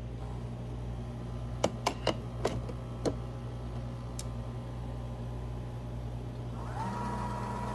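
Breville touchscreen espresso machine just switched on to warm up: a few sharp clicks as its portafilter is handled, then from about seven seconds in a steady whine with a low hum under it as the machine runs.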